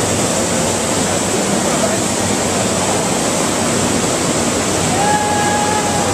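Steady rush of water pouring across the surface of a standing-wave machine, with a single held tone rising above it about five seconds in for about a second.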